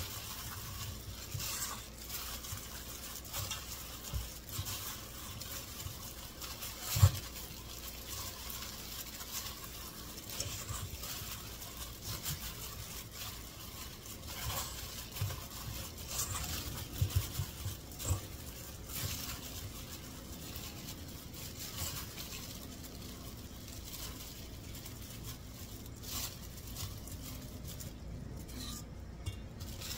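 Gloved hand mixing thick pakora batter in a stainless steel bowl: soft, irregular stirring and rubbing with scattered light knocks against the bowl. A sharper knock comes about seven seconds in.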